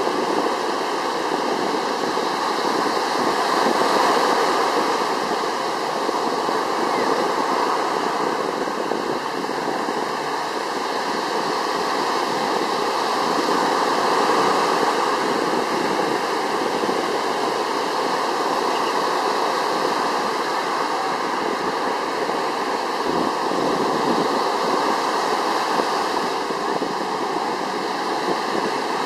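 Surf washing onto the beach: a steady rushing hiss that swells and ebbs slowly a few times.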